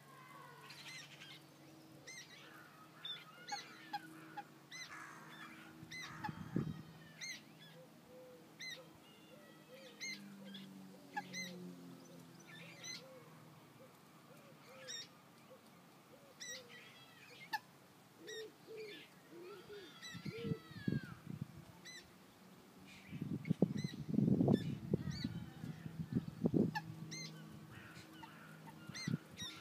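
Common moorhen chicks peeping over and over in short, high calls, with lower honking bird calls at times. A louder low rumble comes a little past two-thirds through.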